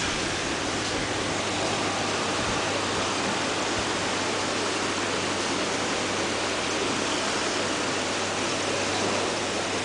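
Steady rushing of water circulating through aquarium filtration, with a constant low hum underneath.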